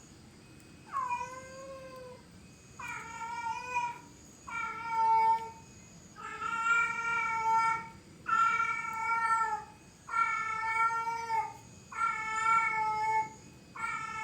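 An animal giving a steady series of drawn-out calls, about one every one and a half seconds, each lasting about a second and dipping slightly in pitch at its start.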